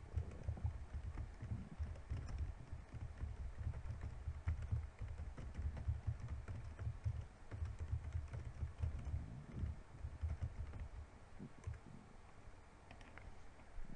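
A stomach growling: a run of quick, irregular low rumbles that thins out over the last few seconds.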